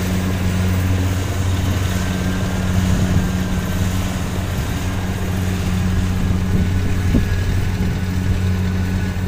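A farm machine's engine running at a steady speed: an even, low drone with a higher overtone above it.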